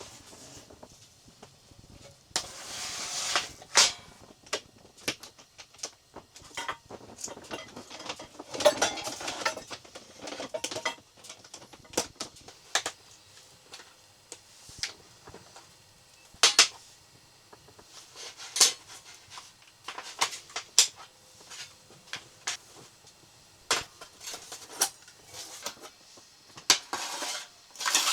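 Things being handled: irregular sharp clicks and knocks, like utensils or gear set down, with two longer bursts of rustling about two seconds and eight seconds in.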